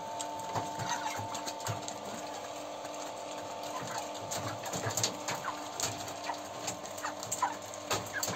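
Broiler chickens cheeping and clucking while they peck feed pellets from a trough, with sharp pecking clicks scattered through and a steady hum underneath.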